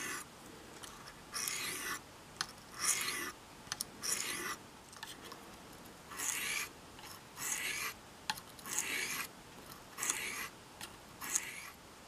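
Carbon-steel pocket-knife blade being honed on the lubricated fine stone of a Smith's Tri-Hone: a series of short scraping strokes, about one every second and a half, with a few light clicks between them.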